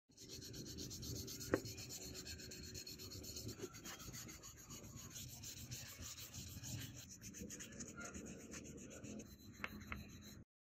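Sandpaper rubbed back and forth over a small plastic model-car bumper: a steady fast scratching, with a sharp click about one and a half seconds in and two more near the end.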